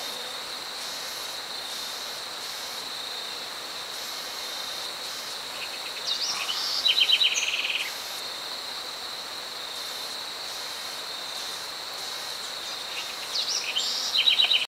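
Insects, likely crickets, keep up a steady high-pitched trill throughout. A bird breaks in twice with quick runs of sharp, rapidly repeated notes, about six seconds in and again near the end; these are the loudest sounds.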